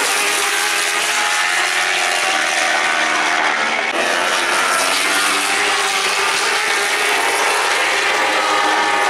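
World Superbike racing motorcycles running at high revs past the trackside, several engine notes overlapping and rising and falling in pitch as the bikes pass and shift.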